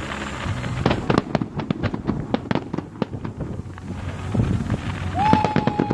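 Consumer fireworks going off: a fast, uneven run of sharp pops and crackles. Near the end a short, steady high whistle sounds for under a second.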